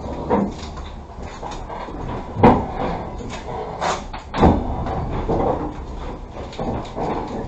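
A few sharp clunks and knocks over a steady low rumble inside a passenger train carriage, the loudest about two and a half seconds in.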